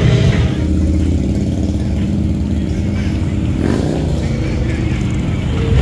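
Motorcycle engine idling, steady and low-pitched, with a short rise in pitch a little under four seconds in.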